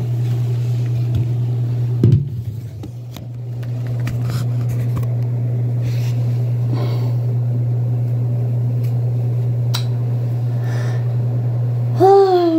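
A steady low machine hum with a faint higher buzz above it. A single knock sounds about two seconds in, and a short vocal sound that falls in pitch comes near the end.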